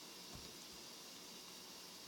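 Near silence: steady hiss of room tone, with one faint low bump about a third of a second in.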